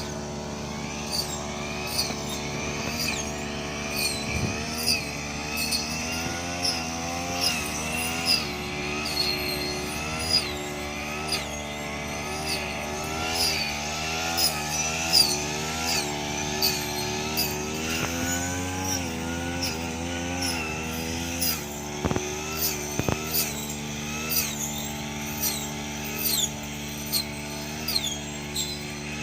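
Brush cutter engine running steadily as it cuts rice stalks, its pitch dipping and recovering again and again as the blade takes load. Short sharp sounds recur about every three-quarters of a second on top of the engine.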